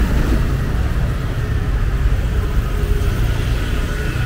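A pickup truck driving slowly past close by, its engine running with a low, steady rumble that is loudest at first and eases off after about a second. A motorbike rides along the same lane.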